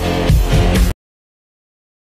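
Background music with a steady beat that cuts off suddenly about halfway through, as the video player playing it is closed.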